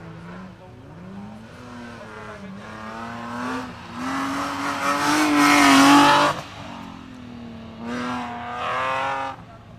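BMW E36 rally car's engine revving hard while drifting, its pitch climbing to a loud peak with the tyres squealing, then dropping off sharply. A second, shorter burst of revs comes near the end.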